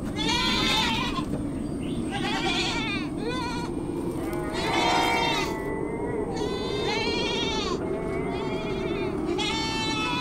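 Livestock bleating: several overlapping, quavering bleats at different pitches, one every second or two, over a steady low background noise.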